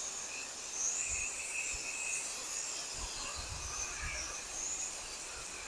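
Steady hiss of water spraying from a pressure-washer wand, with a few soft low thumps about three to four seconds in.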